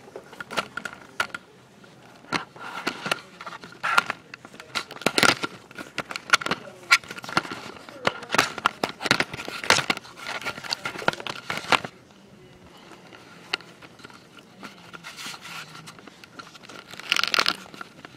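Handling noise from a handheld video camera being carried and turned: irregular rustling, crackling and clicking on the microphone, over a faint steady high tone. It goes quieter about twelve seconds in, with a short burst of crackle near the end.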